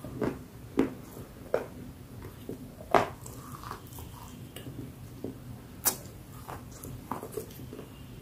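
A person chewing a crumbly, powdery substance close to the microphone: irregular sharp crunches and wet mouth clicks, the loudest about three seconds in.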